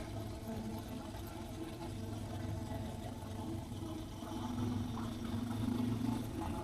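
Suzuki DR650's big single-cylinder four-stroke engine running steadily on the move, getting a little louder about four and a half seconds in.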